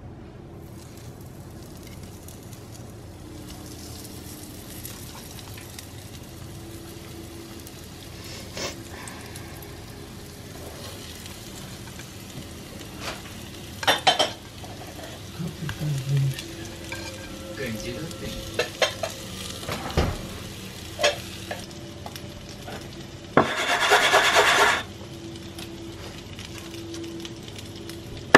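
Oil sizzling steadily in a frying pan as cottage-cheese syrniki are laid in to fry, with scattered knocks and clinks of the plate and utensil against the pan. A louder hiss lasts about a second and a half near the end.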